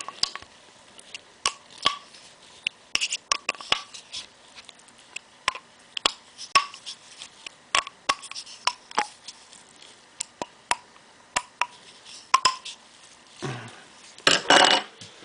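Sharp, irregular metal clicks and light taps of a small hand tool working the cap screws of a Scotts steering damper, a few every second, some with a brief ring, then a louder clatter near the end.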